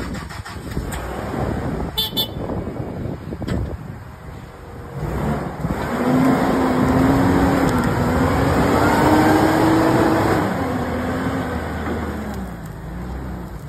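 Hoist F180 forklift's propane engine running, louder from about five seconds in, with a pitched whine that rises and falls for several seconds before easing back near the end.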